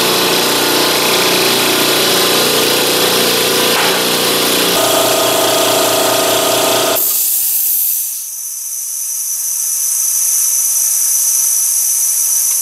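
Campbell Hausfeld 1 HP, 3-gallon air compressor's motor and pump running steadily as it fills the tank near 120 psi, then shutting off suddenly about seven seconds in. A steady hiss of escaping air follows.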